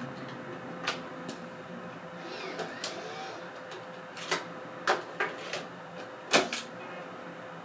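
A 3.5-inch floppy disk being pushed into a Macintosh Quadra 700's floppy drive, making a series of sharp clicks and clacks. The loudest clack comes about six and a half seconds in, as the disk seats in the drive. Under it runs a steady hum.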